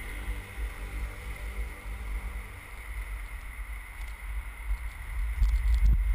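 Wind buffeting an action camera's microphone over the low rumble of inline skate wheels rolling on pavement, growing louder in gusts about five seconds in.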